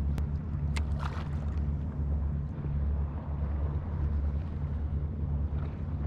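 Wind buffeting the microphone as a steady, fluttering low rumble, over the wash of sea water against a stone seawall. Two short clicks come about a second in.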